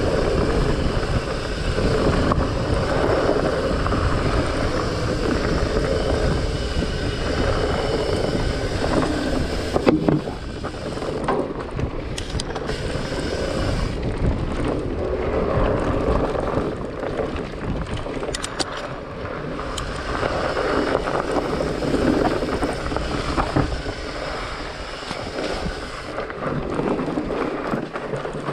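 Wind buffeting the microphone over the rolling rumble of a Trek Farley 9.6 fatbike's fat tyres on a dirt forest trail, with the bike rattling over the ground. There is a sharp knock about ten seconds in, with a few lighter clicks after it.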